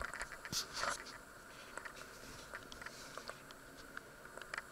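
Quiet room tone with scattered small clicks and a short rustle a little after half a second in.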